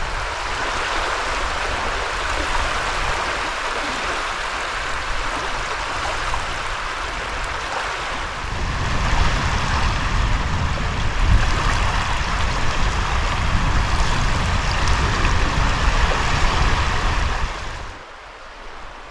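Steady rushing noise of wind and water at the shore. From about halfway a deep rumble of wind on the microphone joins it, and both drop away sharply near the end.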